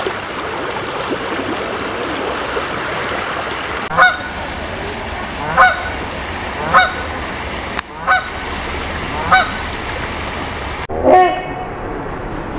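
Canada geese honking: about six loud single honks, starting about four seconds in and spaced a second or so apart, over the steady rush of creek water. The last honk, near the end, is played at half speed, so it sounds deeper and drawn out.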